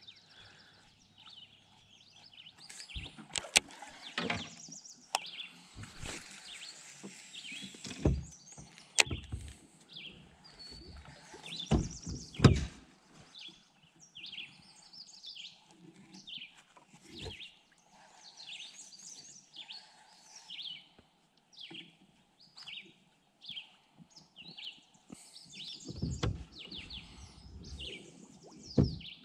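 Birds chirping and singing over and over in short, quick phrases, with a few brief knocks and bumps in between, the loudest about twelve seconds in.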